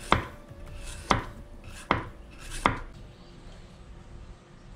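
Kitchen knife slicing a zucchini and striking a wooden cutting board four times, roughly a second apart.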